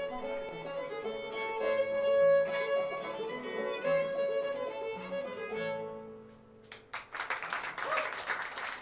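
Old-time string band with the fiddle leading, playing the last phrases of a tune and ending about six seconds in. The audience then claps loudly.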